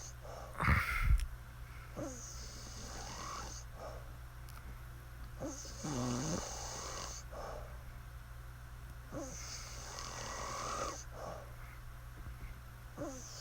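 A woman snoring in her sleep: slow breaths about every four seconds, each with a hissing, whistly rush, and a low rattling snore about six seconds in. A brief loud thump about a second in.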